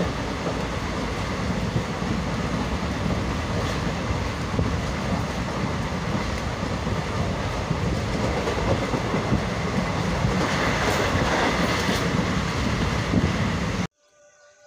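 Passenger train running along the track, heard from inside the carriage by a barred open window: a steady rumble and rattle of wheels and carriage. It cuts off abruptly near the end.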